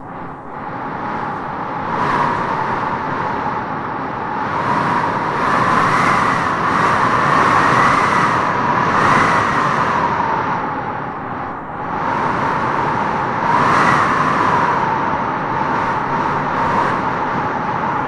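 Strong wind blowing in gusts, with a whistling tone that rises and falls as each gust swells and eases, strongest about halfway through.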